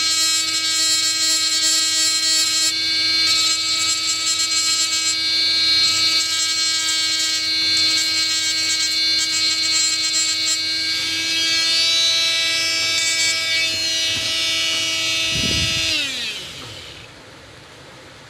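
Handheld mini electric rotary tool with a burr bit running at a steady high whine while grinding down a glued eMMC chip on a circuit board, with scratchy grinding noise coming and going as the burr touches the chip. About sixteen seconds in the motor winds down, its pitch falling away.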